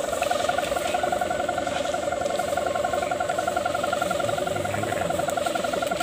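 Sendaren hummer on a flying kite droning in the wind: a steady tone with a fast, even warble and a fainter higher tone above it.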